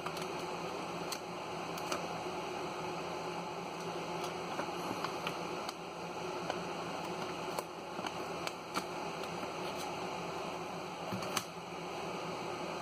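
Scattered faint clicks and taps from handling the phone and its glass screen protector, over a steady hiss.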